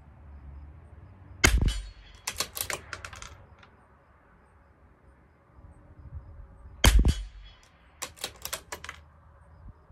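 CZ 457 LRP .22 LR bolt-action rifle firing Eley Bullseye Pistol X rimfire rounds: two shots about five seconds apart, fouling shots from a clean bore. About a second after each shot comes a quick run of metallic clicks as the bolt is worked to eject the case and chamber the next round.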